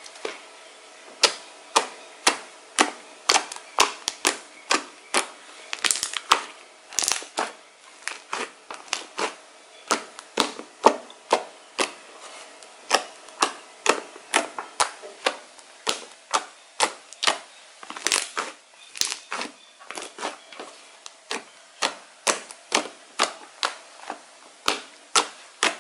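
Fluffy shaving-foam slime being poked and pressed with fingertips, giving sharp clicking pops, roughly two a second.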